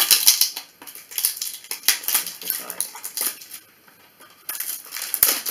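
Small cardboard product box handled and opened by hand: card scraping, tapping and flapping in quick irregular strokes, with a short lull a little past halfway before the handling picks up again.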